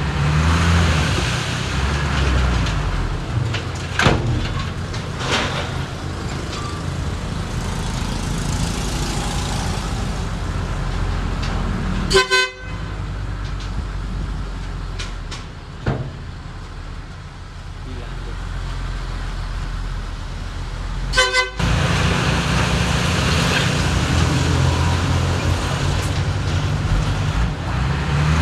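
Diesel engines of a small bulldozer and dump truck running steadily while they push and haul soil, with abrupt breaks about twelve and twenty-one seconds in.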